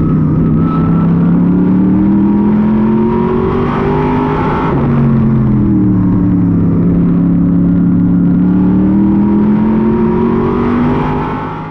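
A modified race car's V8 engine heard from inside the cockpit at racing speed. Its pitch climbs steadily under throttle, drops sharply about halfway through as the driver lifts, then climbs again.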